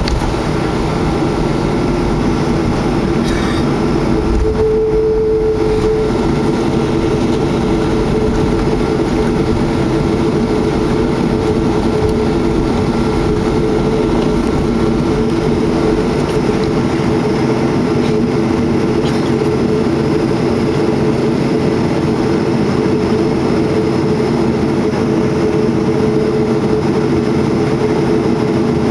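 Boeing 737-300's CFM56-3 turbofan engines heard from inside the passenger cabin: a loud, steady drone with several held tones in it, one growing stronger about five seconds in.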